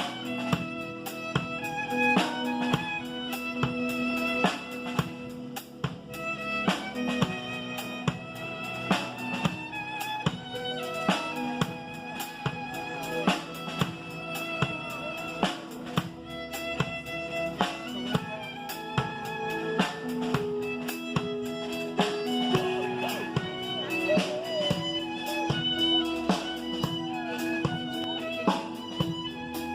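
Instrumental music: a violin playing a melody over a steady drum kit beat.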